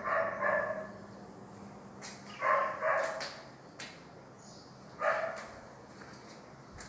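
A dog barking in short bunches: a couple of barks at the start, two more about two and a half seconds in, and one more about five seconds in.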